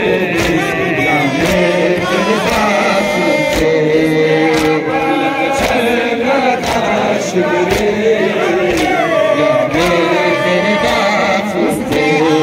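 A crowd of men chanting a Muharram nauha (mourning chant) together, with repeated sharp slaps of chest-beating (matam) cutting through the chant.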